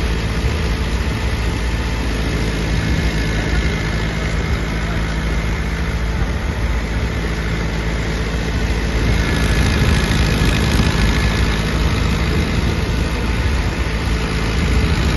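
A tractor-driven threshing machine (Bhag Singh & Sons Super Power 36x40x12 thresher) running while it threshes, with the tractor engine under load. It makes a steady, dense mechanical din that grows a little louder about two-thirds of the way through.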